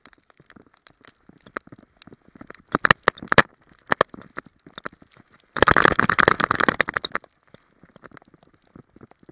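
Close crackling and crunching of snow, with rubbing on the camera, as a dog noses and bounds through snow with the camera on its harness. A dense, louder run of rapid crunching lasts about a second and a half just past the middle.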